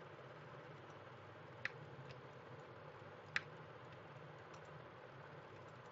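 Two sharp clicks of a computer mouse, about a second and a half and about three and a half seconds in, with a few fainter clicks between, over a low steady background hum.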